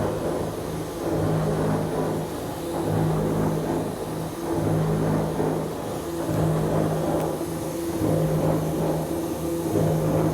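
1990 Amada TPL-150S 150-ton link-motion mechanical press running on a test run, stroking continuously. A mechanical hum swells and fades about every 1.7 seconds, one swell per stroke.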